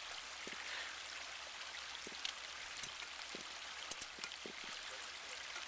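A stream running steadily, an even rush of water, with a few faint scattered clicks and taps.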